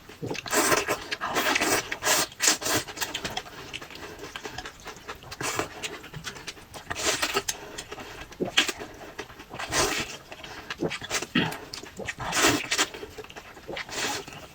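Close-miked eating sounds: wet chewing and slurping in uneven bursts every second or two, with sharp clicks between them.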